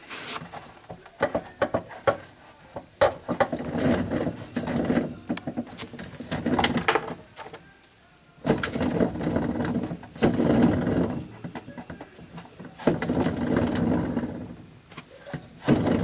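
Maytag dishwasher pump impeller turned by hand through the centre hub, grinding and scraping in repeated bursts of a few seconds with short pauses between. The noise comes from a broken piece of the discharge pump housing rubbing on the impeller.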